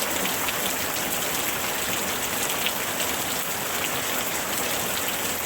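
Heavy rain falling on tree leaves: a steady dense hiss with many small drop ticks.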